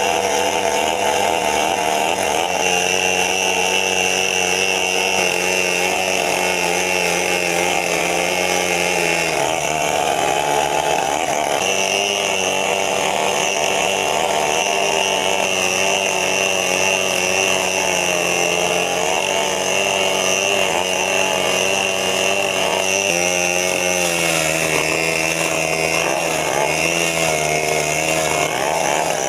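Chainsaw engine running steadily while cutting wood, its pitch shifting slightly a couple of times as the load changes.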